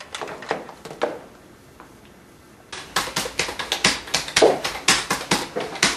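A few soft sounds, then about three seconds in, fast, loud typing on a computer keyboard starts: quick, uneven key strikes, several a second.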